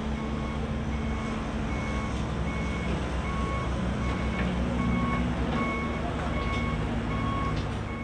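Reversing alarm of a construction vehicle beeping over and over, with the steady low rumble of its diesel engine and general building-site noise underneath.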